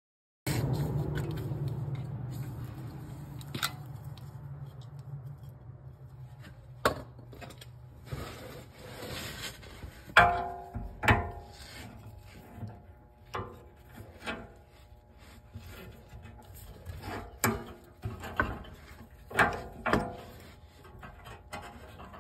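Hand wrench working exhaust fasteners under a car: irregular metal clinks and knocks, a couple of them ringing briefly about ten seconds in, over a low hum that fades during the first few seconds.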